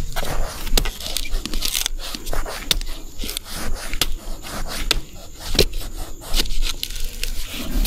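Irregular scraping, snapping and crackling of dry bamboo leaves and stems being handled and trodden through, with many sharp clicks scattered unevenly.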